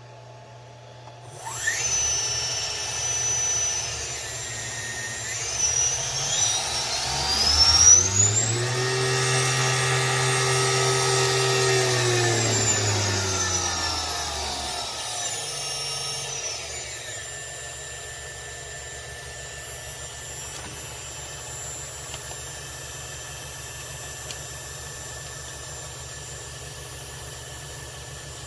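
VFD-driven 2.2 kW water-cooled spindle motor on a belt-drive CNC mill conversion, starting about a second in with a whine that rises in pitch as it spins up, holds at speed, then falls as it slows down. It then settles to a quieter, steady hum.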